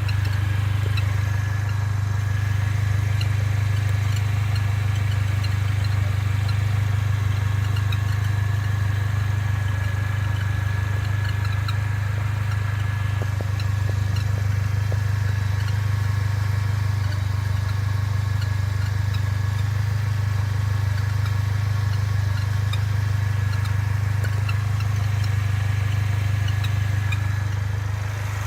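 Mercedes-Benz A45 AMG's turbocharged four-cylinder running while driving: a steady low drone, with faint short high chirps scattered throughout. The chirps are the bird-like abnormal noise whose cause the owner is trying to find.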